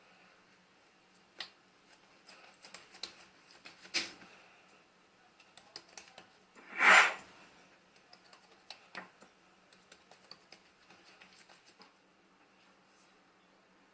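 Kitchen handling sounds while making a green onion pancake: scattered light taps and clicks, with one louder, brief scraping or rustling sound about seven seconds in, over a faint steady hum.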